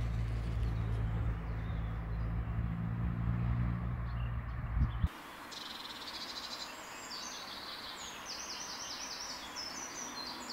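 A low, steady motor hum, which cuts off abruptly about halfway through. Birds are then singing, with quick runs of repeated falling chirps.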